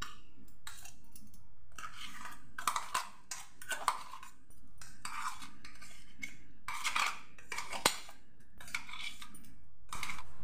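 Scraping and knocking on a steel mixer-grinder jar as thick ground chicken paste is emptied into a plastic bowl: irregular short scrapes, with a sharp click about eight seconds in.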